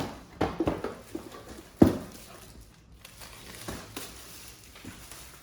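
Cardboard box and packaging being handled and opened: a few irregular knocks and rustles, the loudest about two seconds in.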